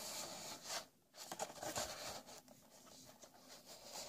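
Faint rubbing and scraping of hands on a cardboard toy box as it is picked up and turned, with a few light taps and a click near the end.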